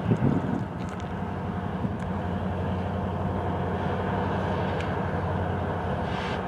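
Norfolk Southern diesel freight locomotives running with a steady low hum, with a few faint clicks over it.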